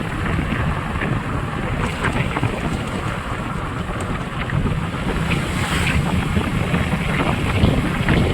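Wind buffeting the microphone on a moving motorbike, with the bike's engine and road rumble underneath.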